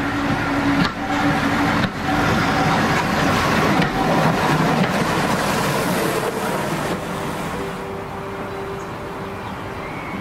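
A train running: a steady noisy rush that eases off about three-quarters of the way through, with two sharp clicks in the first two seconds, over background music.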